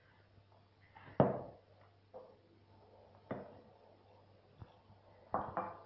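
Several knocks of kitchenware on a tabletop as a mixing bowl of flour and a glass water jug are handled, the loudest a sharp knock about a second in, over a faint steady hum.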